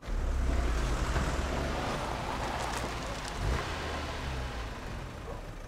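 A car engine running with a low rumble over a wash of road noise, swelling briefly about three and a half seconds in.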